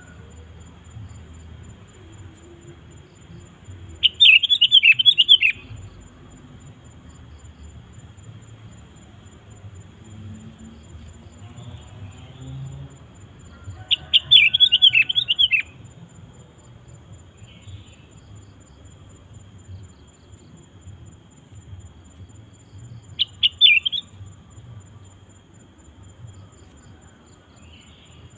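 Sooty-headed bulbul (kutilang) singing three bursts of quick, bubbly chattering notes, each about a second and a half long and roughly ten seconds apart, the last one shorter. A faint steady high-pitched tone runs underneath.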